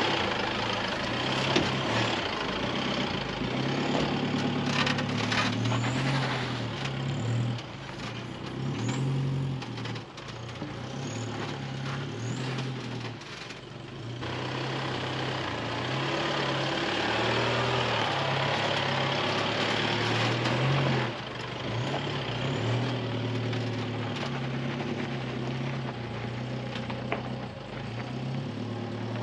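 4WD ute's engine running under load as the vehicle crawls along a rough dirt track towing a camper trailer, with a steady low drone. The level drops abruptly several times.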